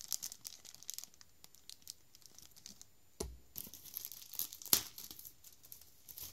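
Thin clear plastic bag crinkling and rustling in irregular crackles as the plastic doll coat hangers inside it are handled and taken out, with a single dull thump about three seconds in.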